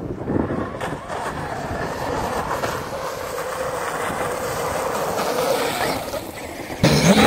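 Traxxas X-Maxx electric RC monster truck skimming across water at speed: a steady motor whine over the hiss of its tyres churning up spray. A sudden louder burst of sound comes near the end.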